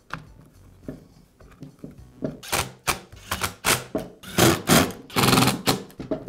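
Red plastic handle cover of a Milwaukee portable band saw being pressed and snapped onto the handle by hand: a quick run of sharp plastic clacks and knocks starting about two seconds in, with one longer, louder stretch near the end.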